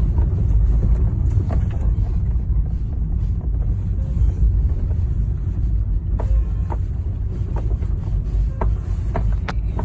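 Car driving at low speed, heard from inside the cabin: a steady low rumble of road and engine noise, with scattered short clicks and knocks that come more often from about six seconds in.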